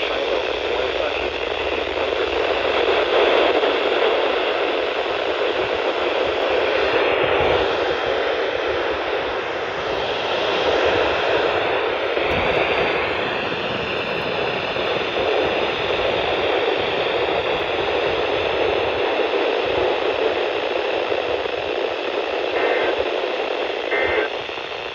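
Steady static hiss from a weather radio receiver after the warning message ends. Near the end come two short data bursts, the warbling two-tone EAS end-of-message code that closes the alert.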